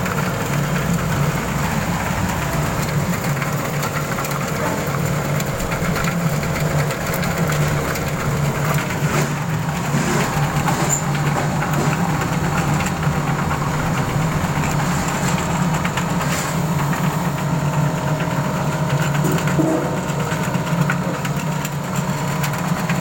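Garlic and shallot peeling machine running steadily, a constant motor hum with occasional light ticks.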